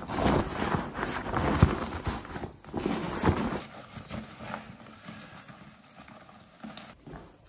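Gear being stuffed into a backpack: nylon and fabric rustling with soft knocks and thumps. It drops off suddenly to quieter, sparser handling about three and a half seconds in.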